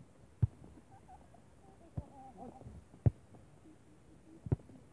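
A volleyball being struck during a beach volleyball rally: four sharp slaps of hands and arms on the ball, roughly a second to a second and a half apart.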